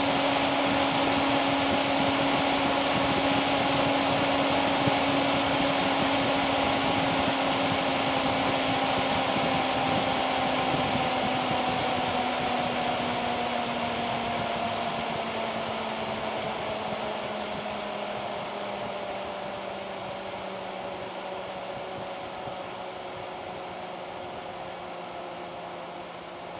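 Dell Dimension E521's large BTX CPU cooling fan running at high speed, a loud rushing whoosh with a steady hum. About a third of the way in it starts winding down, its hum sliding lower and the rush growing quieter.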